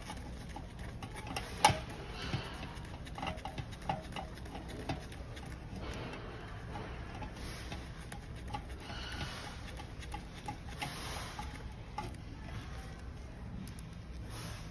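Irregular light clicks and taps of a screwdriver and small metal parts against a sheet-metal burner housing while an ignition needle is fitted. The loudest click comes about one and a half seconds in, with a run of clicks over the next few seconds, then only scattered ones.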